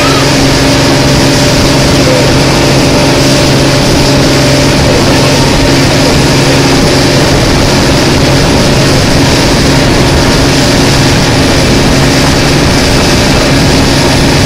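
The motor of a small open passenger boat running steadily under way, with a low hum under the rush of wind and water.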